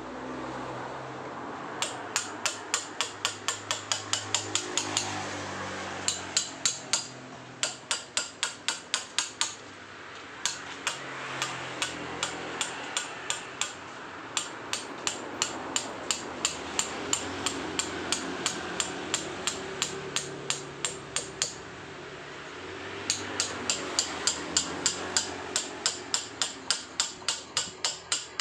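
Hand chisel being struck with a hammer to carve paras Jogja stone: quick, regular metallic taps at about four a second, in runs of several seconds broken by short pauses.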